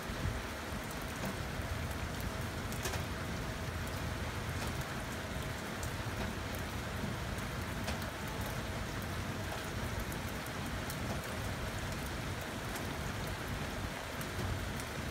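Heavy rain falling steadily, with scattered sharp ticks of drops striking nearby surfaces.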